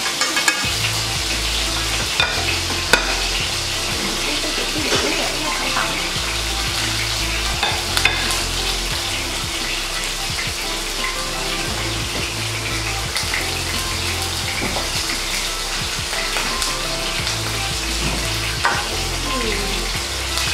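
Tuna fillets sizzling steadily in hot oil in a frying pan as they sear, with a few sharp clicks of tongs against the pan. A low hum cuts in and out underneath.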